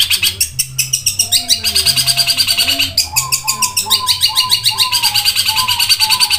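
Long-tailed shrike (cendet) singing a fast, rapid-fire run of high chirps, with a slower series of lower, stepped notes joining in from about three seconds in.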